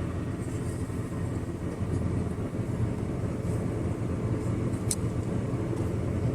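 Steady low background rumble, with one brief light click about five seconds in.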